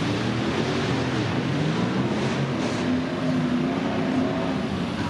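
Argo 6x6 amphibious ATV's engine running under load, its pitch rising and falling, over the splashing of its tyres churning through muddy water.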